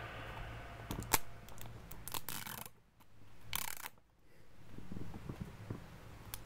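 Faint crinkling and small clicks of a foil wrapper and a plastic egg shell being handled in the fingers, broken twice by brief drops to silence.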